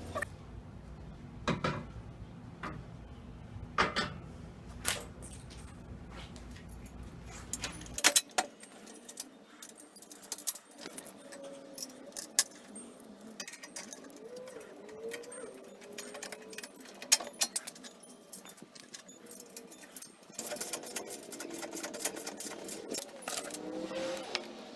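Metal clinking and rattling of a wrench on the bolts and steel parts of a table saw stand being assembled: scattered sharp clicks, thickest near the end. A low hum underneath stops suddenly about eight seconds in.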